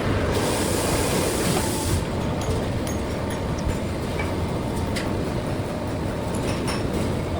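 Automatic square-duct production line running: a steady mechanical rumble from the roll-forming and punching machinery, with scattered clicks and knocks. A high hiss comes in just after the start and stops about two seconds in.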